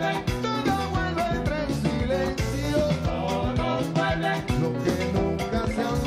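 A man singing lead into a microphone over a live Latin band, with a steady bass line and busy percussion.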